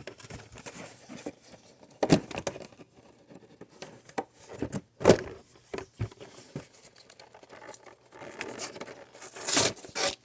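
Handling a Pokémon trading card box and its packaging: scattered rustles, taps and scrapes of cardboard and plastic, loudest about five seconds in and again near the end.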